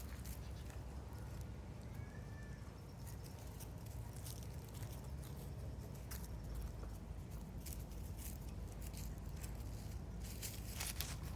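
Hands stroking and massaging a Shiba Inu's fur: soft rubbing and scattered light clicks over a low steady rumble, with a faint, short high-pitched whistle about two seconds in.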